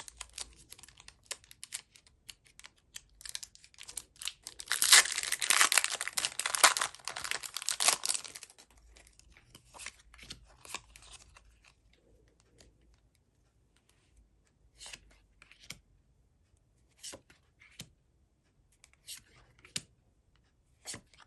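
Pokémon card packaging being torn open and crinkled. The tearing and crinkling is heaviest for a few seconds near the start, then gives way to scattered short crinkles and clicks.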